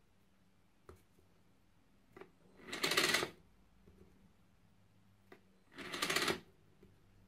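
Small DC motor driving a LEGO conveyor belt through plastic LEGO gears, running twice in short spells of under a second; the second spell builds up from a standing start, and each stops abruptly as the belt is switched off. A few light clicks come between the spells.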